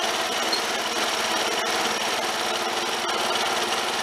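Snapper LT11 garden tractor's engine running steadily as the tractor drives along.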